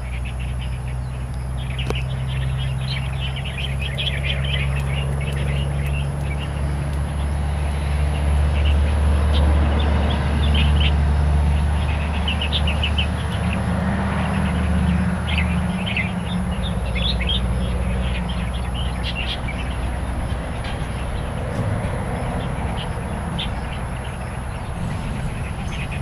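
Wild songbirds chirping in quick, scattered bursts, over a loud, steady low rumble and a thin, steady high whine.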